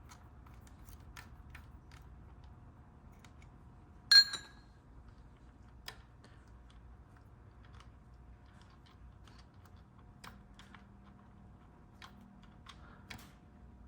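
Hand tools working on metal parts: scattered light clicks and taps, and one sharp metallic clink that rings briefly about four seconds in.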